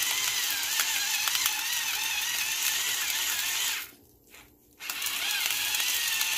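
Salt grinder being twisted over the pot, a steady ratcheting grind. It stops for about a second a little past the middle, then resumes.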